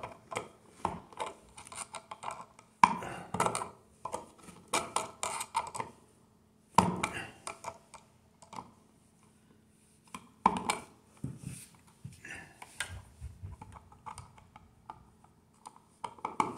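Steel needle-nose pliers clicking and scraping against a broken metal screw in a wall box while someone tries to grip it and work it out. Irregular small ticks, with a few sharper clicks a few seconds apart.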